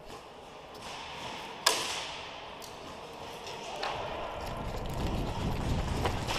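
Airsoft gunfire: one sharp, loud shot about 1.7 s in, then a few fainter clicks. A low rumbling noise builds through the second half.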